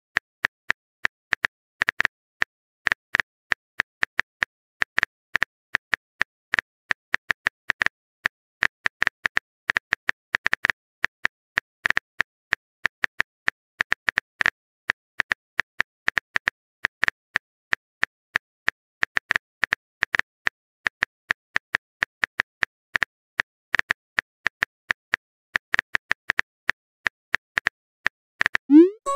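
Texting-app keyboard tap clicks, one short sharp click per typed letter, several a second in an uneven run. Right at the end a short rising swoosh begins as the message is sent.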